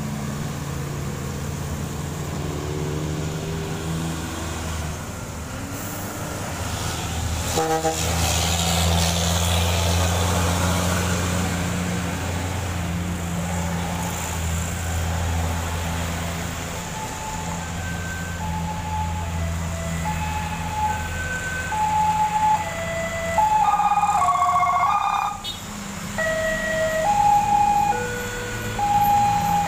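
Heavy trucks' engines running as they pass on a wet road, a low steady hum with tyre hiss swelling as one goes by. In the second half a string of short pitched notes steps up and down like a tune, with a louder horn-like blast about three-quarters of the way through.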